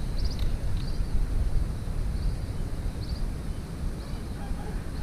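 Outdoor ambience: a steady low rumble of wind on the microphone, with faint short high chirps from birds scattered throughout.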